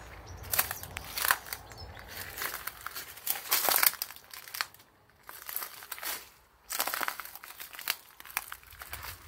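Close rustling and crinkling right at the microphone as the handheld camera is moved about, coming in irregular bursts with two short lulls in the middle; loudest about three and a half seconds in.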